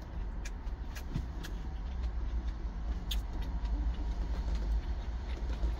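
Steady low rumble of an idling truck engine heard inside the cab, with a few scattered sharp clicks from eating: chewing, and chopsticks on a plastic lunch tray.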